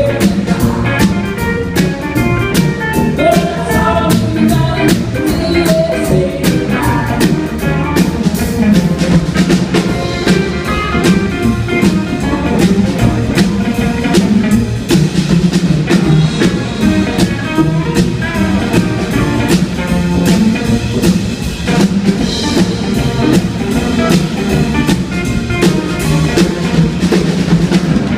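A small blues band playing live: hollow-body electric guitar and upright double bass over a drum kit keeping a steady beat.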